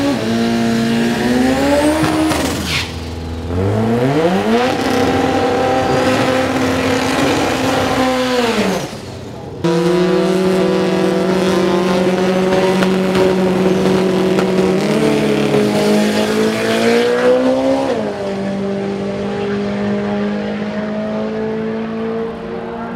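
Drag race car engines revving hard with tyre squeal during a burnout. After a break, an engine holds at steady high revs on the line, climbs in pitch at the launch, then settles into a steadier run as the car pulls away down the track.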